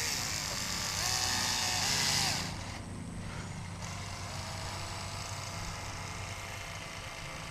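Battery-powered caulking gun motor running while it pushes a bead of windshield urethane from the tube, with a faint whine that shifts in pitch; it stops about two and a half seconds in, leaving a low steady background.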